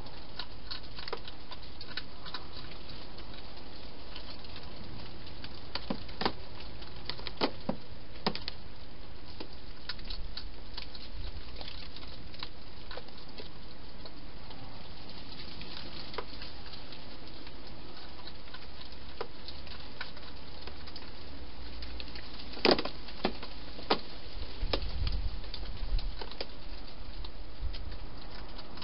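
Wild hedgehog eating from a dish inside a plastic feeding box: irregular sharp clicks and smacks of chewing over a steady hiss, with a louder run of clicks and a few soft knocks near the end.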